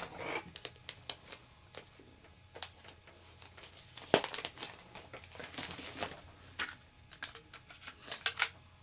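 Plastic comic-book bag crinkling and rustling as a comic and its cardboard backing board are handled and slid in, with scattered clicks and one sharp tap about four seconds in.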